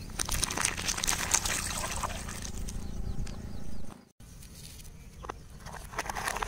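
Thin plastic cups of red drink crushed under a car tyre: dense crackling of splitting plastic with liquid splashing and dribbling onto the asphalt for about four seconds. After an abrupt break, a quieter stretch of tyre on grit with a few sharp cracks, and paper cups crumpling under the wheel near the end.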